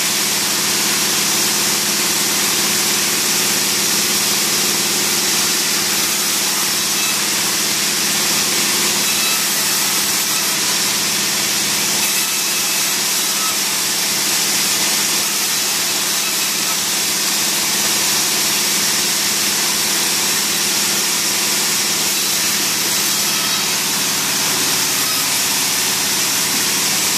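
Log-sawing machine in a sawmill running steadily: an even mechanical hum under a constant hiss, with no clear breaks or separate cuts.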